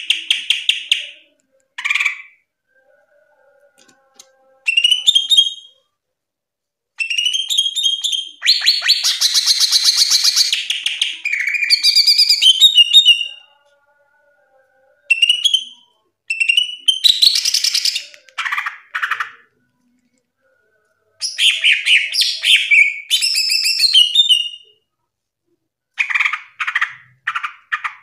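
Cucak ijo (green leafbird) singing loud, full song: bursts of rapid chirps, trills and sliding whistled notes, phrase after phrase with short pauses between them.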